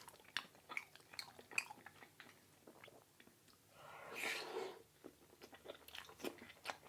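Mouth sounds of chewing soft mac and cheese with avocado: many small wet clicks and smacks, with a louder rushing sound about four seconds in.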